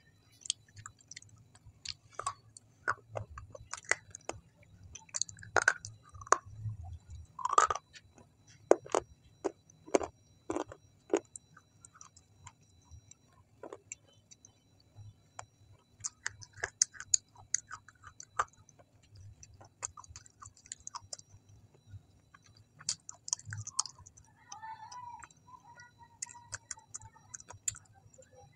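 Close-miked chewing with the mouth closed: irregular sharp clicks and crackles, thick in the first half, thinning out in the middle, then coming again in clusters toward the end.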